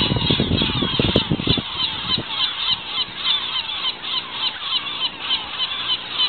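A large seagull colony calling: dense, overlapping, harsh cries from many gulls at once. A low rumble on the microphone stops about two seconds in.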